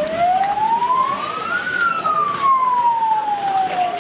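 Police siren wailing, its pitch rising for nearly two seconds and then falling slowly.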